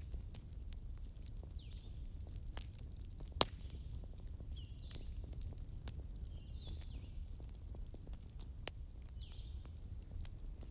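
Wood fire in a fireplace crackling over a low steady rumble, with a few sharp pops, the loudest about three and a half seconds in. Faint short high chirps recur every couple of seconds behind it.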